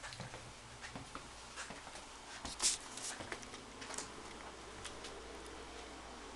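Faint, irregular taps and clicks from someone walking through a small room with a handheld camera, over a low steady room hum; one sharper click stands out about two and a half seconds in.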